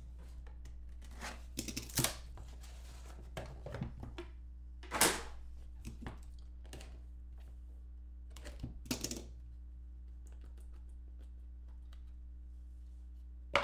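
Hands opening a trading-card box: scattered rustles, scrapes and taps of cardboard and plastic packaging, the loudest about five seconds in, with a sharp tap at the very end. A steady low hum runs underneath.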